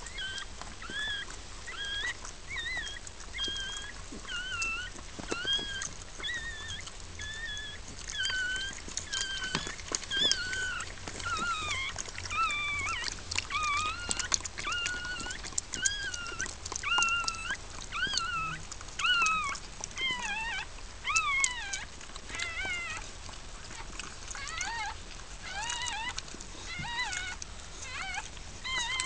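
Newborn puppy crying in a long run of short, high-pitched squeaks, a few a second, like mewing. Its mother is licking it clean just after birth, with small clicks among the cries.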